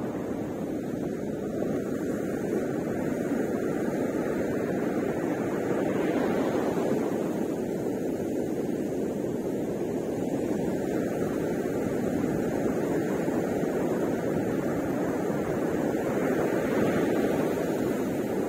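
Ocean surf breaking and washing up the beach, a steady rushing that swells a little twice as waves come in.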